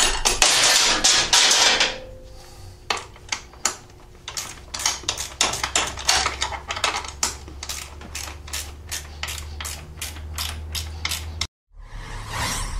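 Ratchet wrench clicking in quick, even strokes, about three or four clicks a second, as a bolt is turned. A loud rushing noise comes before the clicking, and another swell of noise follows it near the end.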